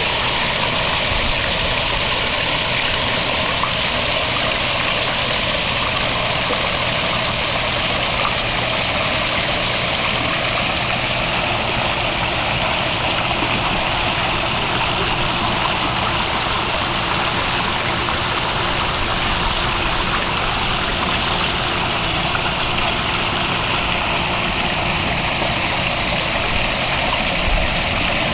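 Running water in a garden pond: a steady, unbroken rush of splashing water.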